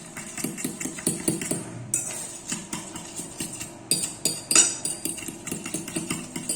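A fork clinking and scraping against a bowl in quick, uneven strokes, mashing and mixing banana for pancake batter, with one louder knock about four and a half seconds in.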